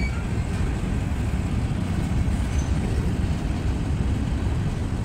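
Freight train cars rolling slowly past, a steady low rumble.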